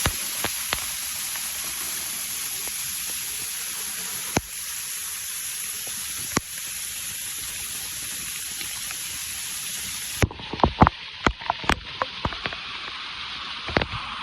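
Waterfall rushing steadily. About ten seconds in the sound cuts abruptly to a quieter rush of water with a run of irregular sharp clicks and taps.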